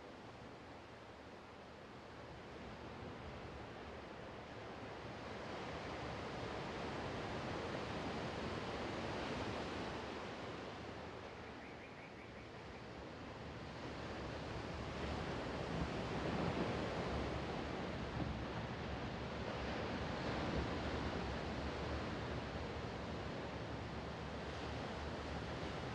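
Sea waves breaking and washing in close by, recorded a couple of metres from the water near rocks. The surf swells over several seconds, eases off about halfway through, then builds again and stays full.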